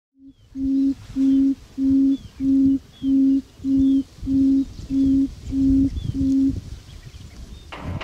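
Buttonquail's low booming call: a run of about ten even, low hoots at the same pitch, roughly three every two seconds, stopping about six and a half seconds in. Faint high chirps of small birds sound above it.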